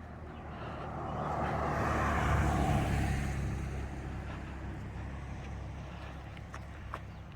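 A car passing on the road, its engine and tyre noise swelling to a peak about two seconds in, then fading away.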